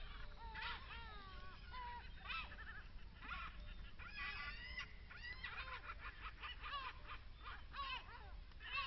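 A flock of birds calling, many short pitched calls overlapping almost without pause, over a low steady rumble.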